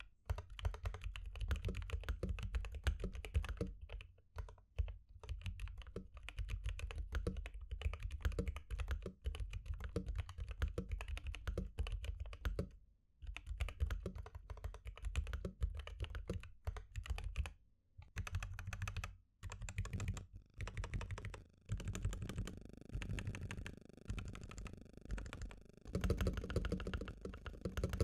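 Typing on a Gamakay LK67 mechanical keyboard fitted with unlubed Akko CS Jelly Black linear switches and ABS keycaps, tape- and foam-modded: a fast, continuous run of keystroke clacks with a few brief pauses.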